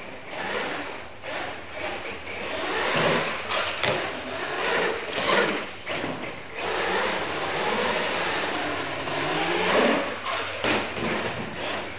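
Radio-controlled monster trucks driving and jumping ramps on a concrete floor. Their motors and gears run with pitch rising and falling as the trucks speed up and slow, and there are several thuds as trucks land or strike ramps.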